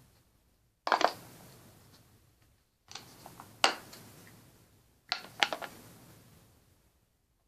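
Plastic makeup compact being handled: sharp clicks and taps in three short bursts about two seconds apart, each trailing off in a faint hiss.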